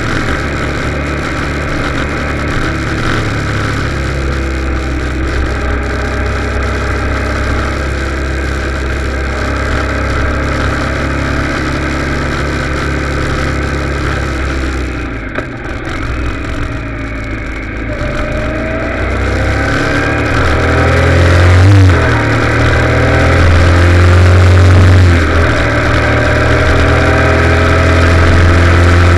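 Motorcycle engine running steadily at road speed. About halfway through the throttle eases off, then the engine revs up, rising in pitch with brief breaks for gear changes, and is louder toward the end.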